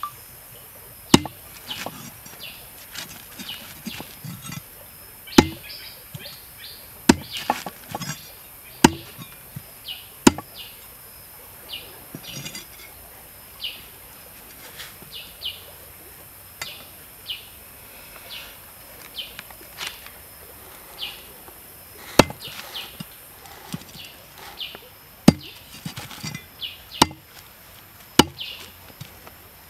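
A heavy cleaver chopping raw eel on a wooden chopping block: single sharp chops at irregular intervals, a second to a few seconds apart. Short high bird chirps sound in the background between the chops.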